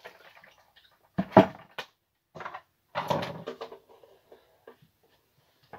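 Handling knocks and thuds as the emptied plastic fermenting bucket is moved and set down, the heaviest thud about a second and a half in, followed by a few lighter clunks and small clicks of plastic gear being handled.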